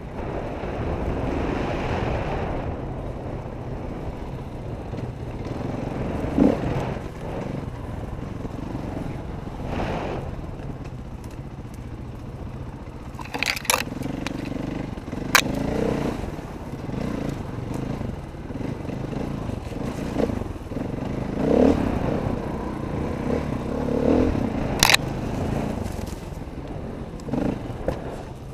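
Dirt bike engine running at low, uneven throttle on a rough trail, picked up by a camera mounted on the bike, with the rattle and scrape of the bike over the ground. A few sharp knocks cut through, a cluster about halfway through and one more near the end.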